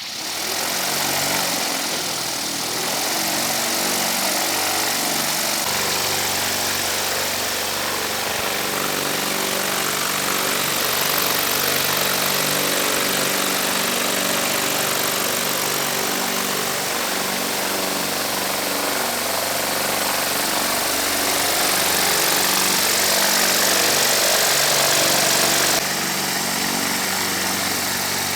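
Homemade blower of a washing-machine motor driving a 35-inch propeller, run at full speed on 60 volts: a loud, steady rush of propeller wind with a motor hum under it. It comes on at once at the start.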